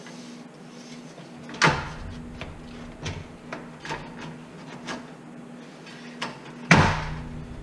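The metal centre cover of a fluorescent light fixture being pressed and snapped into place, with two loud snaps about five seconds apart and lighter clicks and taps between them.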